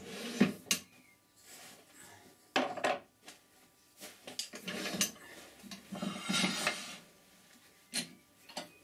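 Metal clunks, clicks and scrapes from a wood lathe's tailstock and tool rest being slid along the lathe bed and clamped in place. The knocks come irregularly, with short sliding scrapes between them and two quick clicks near the end.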